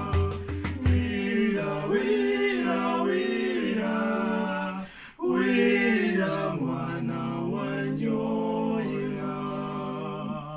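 Voices singing a Ugandan traditional folk song unaccompanied after a few beats in the first second. The singing breaks off briefly around the middle, resumes, and stops abruptly near the end.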